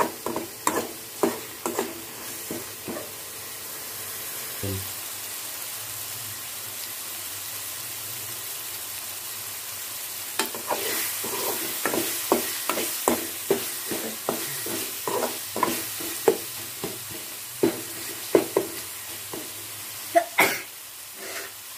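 Metal ladle scraping and knocking against an aluminium pan as thick tomato chutney is stirred while it fries in oil, over a steady low sizzle. The knocks come quickly for the first few seconds, stop for several seconds, then return at about two a second.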